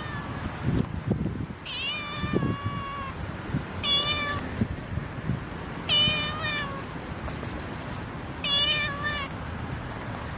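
Calico stray cat meowing about five times, roughly every two seconds, the call about two seconds in long and drawn out, asking for food.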